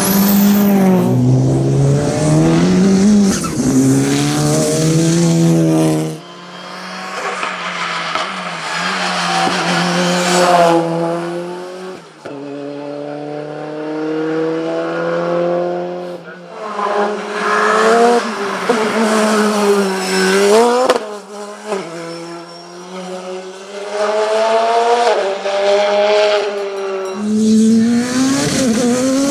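Turbocharged hill-climb race cars, one after another, running hard under acceleration. Each engine note climbs and then drops back at every upshift, and there are a few sharp exhaust cracks.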